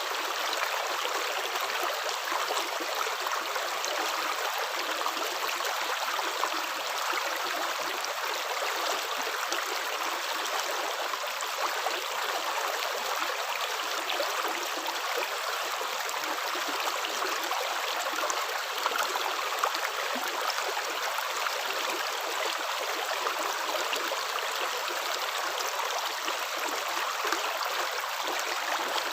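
Running water flowing steadily, like a stream, with small splashy ticks over an even rush.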